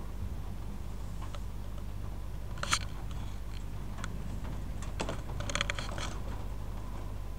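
A few sharp clicks and ticks over a steady low hum. The loudest click comes about two and a half seconds in, and a quick cluster of clicks follows about five and a half seconds in.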